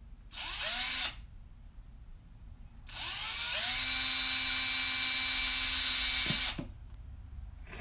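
Craftsman cordless drill running twice: a short burst of under a second, then a longer run of about three and a half seconds. Each time the motor winds up in pitch and then holds a steady whine, and the long run winds down at the end.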